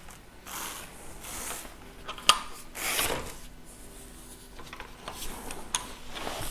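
Handling noise as a bike is lifted out of its shipping box: packaging rustling and scraping in several swells, with a sharp knock about two seconds in.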